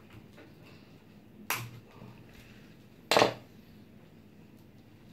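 Two sharp plastic snaps from handling zip ties on a 3D printer's extruder, one about a second and a half in and a louder one just after three seconds, with a few faint ticks between.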